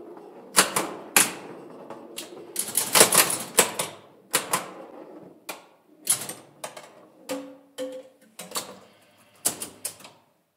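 1965 Bally Six Sticks electromechanical pinball machine in play with its glass off: irregular sharp mechanical clacks from its flippers, bumpers and relays, bunched into a rapid flurry about three seconds in. A short ringing tone sounds about seven seconds in.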